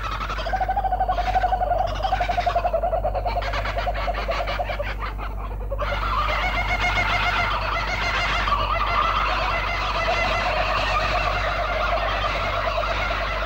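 Kookaburras laughing: a fast, pulsing chorus of calls that grows denser and fuller about six seconds in.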